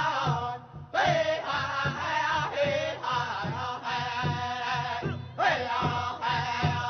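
Native American song: a voice chanting in long held phrases over a steady drum beat, pausing briefly for breath twice.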